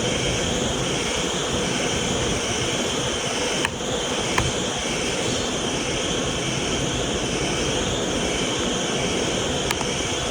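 Vacuum cleaner motor running steadily, a constant rush of air and motor whine, with a few brief clicks.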